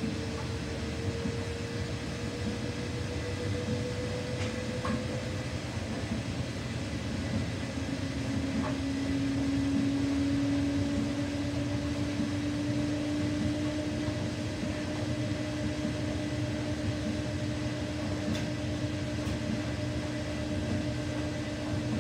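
Samsung front-loading washing machine running with a single towel and water in the drum: a steady mechanical hum with a motor whine that rises slowly in pitch, once in the first few seconds and again from about a third of the way in.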